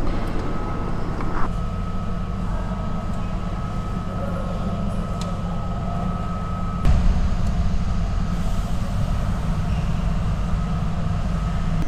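Steady low rumble of an underground parking garage, with a faint steady high tone that stops about seven seconds in, where the rumble briefly grows louder.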